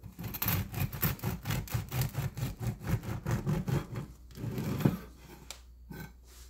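Bread knife sawing quickly back and forth through the crust of a freshly baked multi-grain sourdough loaf on a wooden cutting board, about five or six rasping strokes a second. The sawing stops about four seconds in, followed by a short scrape and a couple of light knocks as the slice comes away.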